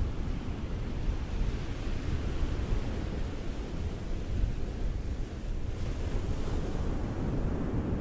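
Ocean surf on a beach: a steady low rumble of waves, with the hissing wash of a breaking wave swelling up about six seconds in and fading near the end.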